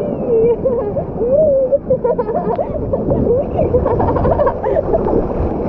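Steady rushing water at a busy resort pool and water slide, with distant children's voices calling over it.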